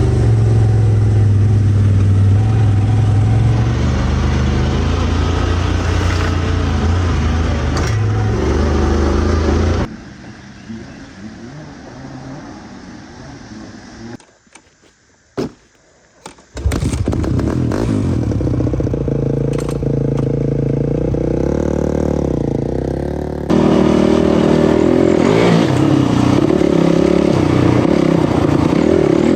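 Off-road vehicle engines running under way, with scraping and clattering, broken by editing cuts. About a third of the way through the engine sound drops away to quiet, then near silence with a single click. Engine noise returns about halfway through and changes abruptly again later.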